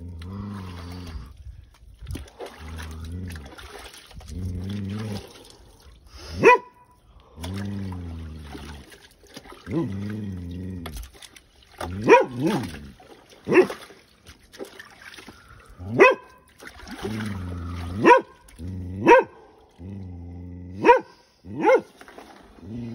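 A man's low, drawn-out voiced groans on the out-breath, each about a second long, broken about nine times by short, sharp, rising yelps: his vocal breathing through the cold shock of sitting in an ice-water bath.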